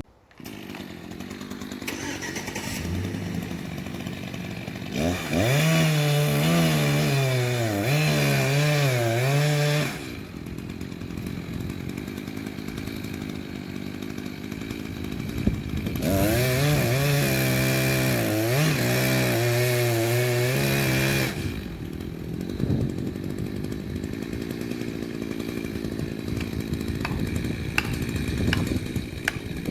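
Echo CS-590 Timber Wolf two-stroke chainsaw idling, then run at full throttle twice for about five seconds each, its pitch wavering up and down as the chain bites into the wood, dropping back to idle in between and afterwards.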